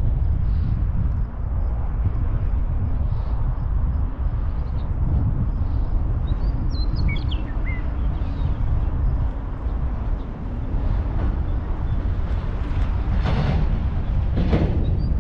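Strong wind buffeting the microphone as a steady low rumble. A bird chirps a few times about halfway through.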